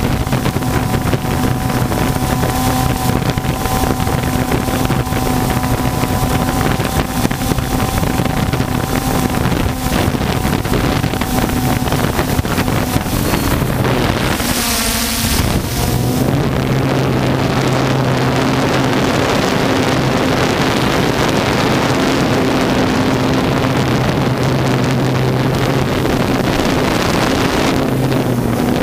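Multirotor drone's electric motors and propellers humming steadily, close to the microphone, with wind noise over it. About halfway through the hum breaks off under a brief rush of hiss, then comes back at a slightly changed pitch.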